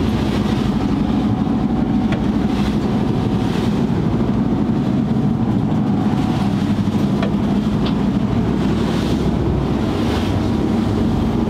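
A fishing boat's engine running steadily at cruising speed, heard from inside the wheelhouse, with spray and water rushing along the hull as the bow cuts through the swell.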